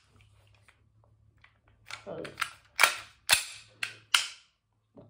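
Elite Force Glock 18C gas blowback airsoft pistol being worked by hand: about five sharp mechanical clacks in quick succession from about two seconds in, from its slide and magazine being handled.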